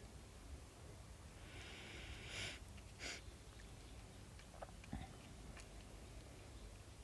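A pet chewing a snack, faint, with two short hissy breaths or sniffs in the middle and a few small clicks a little later.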